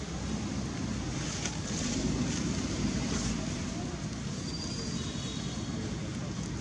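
Steady low outdoor background rumble, with a few faint rustles.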